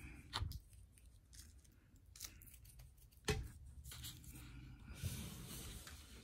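Faint scattered clicks and scrapes of a plastic fork digging into mac and cheese in a plastic takeout bowl as the bowl is handled, with one sharper knock about three seconds in.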